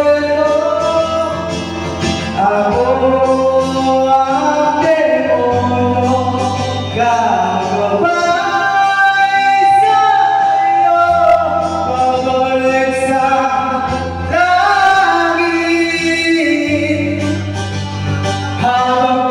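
A man singing into a handheld microphone over instrumental accompaniment, holding one long note about eight seconds in.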